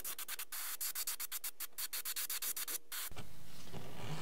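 Gravity-feed airbrush spraying paint through a stencil: a hiss of air broken into many short, rapid bursts as the trigger is pulsed, stopping about three seconds in.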